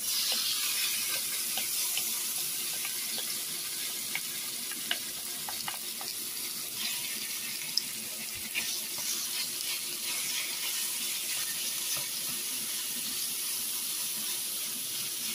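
Seasoned beef tips frying in hot vegetable oil in a skillet: a steady sizzling hiss with scattered spattering pops as the meat starts to brown.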